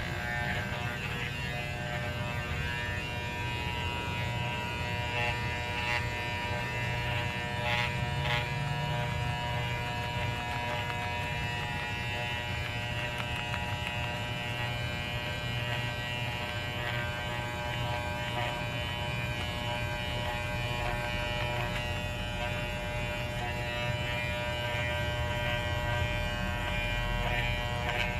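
Electric hair clippers running steadily as a small dog's coat is shaved, a constant buzzing hum with a few faint ticks.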